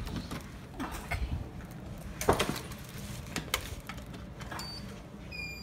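Hotel room door being opened and entered: sharp clicks and knocks of the lever handle and latch, and a key card handled into its wall power slot. A short electronic beep sounds near the end.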